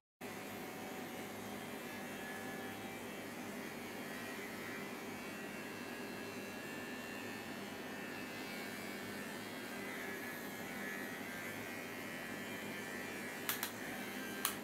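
A steady low electric hum, with two brief clicks near the end.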